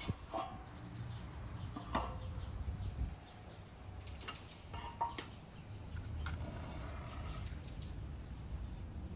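Split firewood logs knocking against each other and against the metal fire pit's rod grate as they are stacked by hand: a few separate sharp knocks, a second or more apart.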